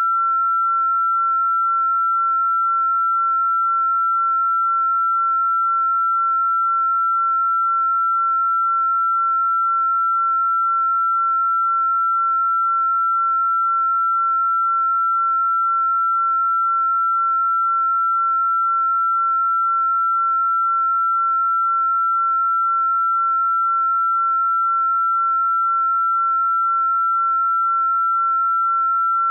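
A single pure electronic sine tone, fairly high-pitched, held perfectly steady in pitch and loudness: a synthesized 'healing frequency' tone.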